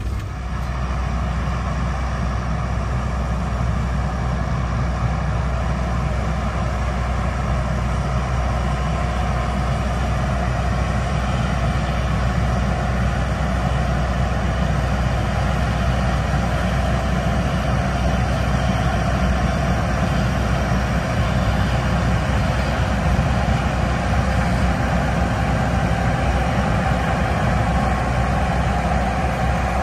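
Diesel engine of a Peterbilt grain truck running steadily, an even low drone with no change in pace.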